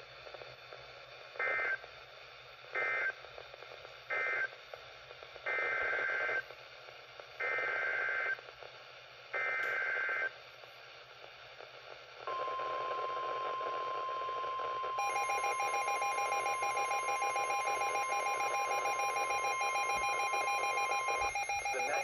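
Midland NOAA weather radio receiver playing Emergency Alert System data tones: three short end-of-message bursts, then three longer header bursts announcing the next alert. About 12 seconds in, the steady 1050 Hz NOAA warning alarm tone starts, and a few seconds later the radio's own rapid pulsing alert beep joins it.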